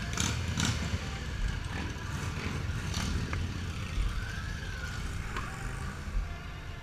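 Cruiser motorcycle engines idling with a low, steady rumble, with a couple of sharp knocks in the first second and another about three seconds in.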